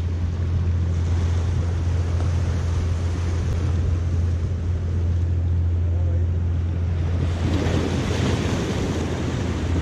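Waves washing and splashing against the boulders of a rock jetty, with a fuller surge of splashing near the end. Wind rumbles steadily on the microphone underneath.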